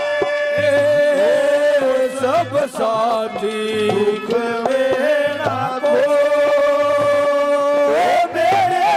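Instrumental interlude of live Haryanvi ragni music: a long, held melody line that slides between notes over a steady dholak beat.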